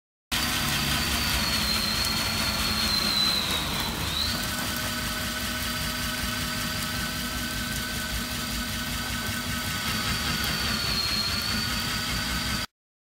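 Hilti core drill's electric motor running steadily with a high whine that dips in pitch about four seconds in and again near the end.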